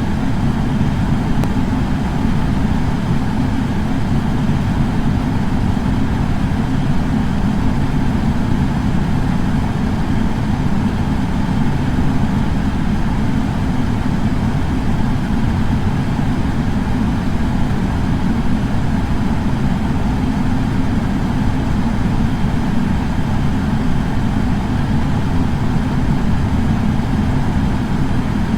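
Air purifier fan running steadily: a constant low whooshing hum of moving air, with no changes.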